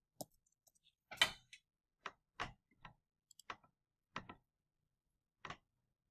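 Computer keyboard keystrokes: about eight sharp clicks at uneven intervals over five seconds, with gaps of silence between them.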